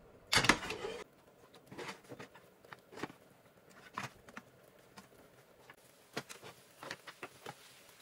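Plastic spatula scraping and knocking against a nonstick frying pan while breaking up an egg pancake: a loud scrape about half a second in, then scattered short clicks and scrapes.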